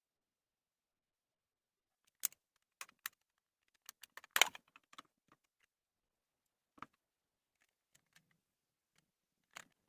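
Scattered clicks and knocks of a small LED torch being handled and opened up by hand. After a quiet start they come one by one, with a quick cluster about four to five seconds in that is the loudest.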